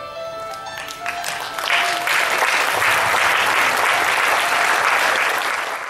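Soft instrumental music, joined about a second in by an audience applauding; the applause grows louder and covers the music.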